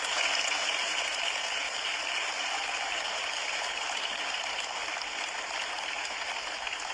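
Audience applauding: many hands clapping in a steady, dense patter that eases slightly toward the end.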